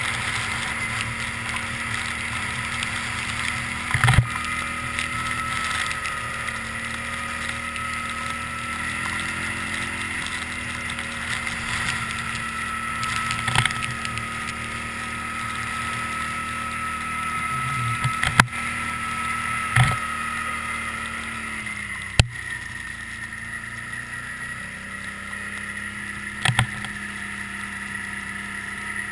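2009 Can-Am Outlander Max 800 ATV's V-twin engine running at a steady pace during a ride, with a sharp knock or bump about six times.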